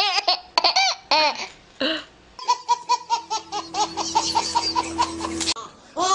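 Babies laughing, one after another. First come high, pitched bursts of laughter. Then a quick run of short laughs, about six a second, over a steady hum, and a fresh laugh starts near the end.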